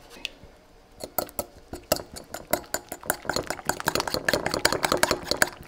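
A fork beating raw eggs and grated pecorino in a ceramic bowl: rapid clinking of the tines against the bowl, starting about a second in and growing louder.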